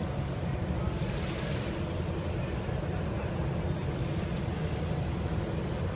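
Steady low rumble of wind buffeting the microphone, with water washing against a sandy shore.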